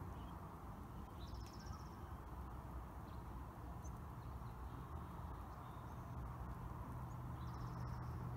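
Steady low rumble of street traffic with a low hum that grows toward the end. A small bird gives a high, rapid trill about a second in and again near the end, with a few faint chirps between.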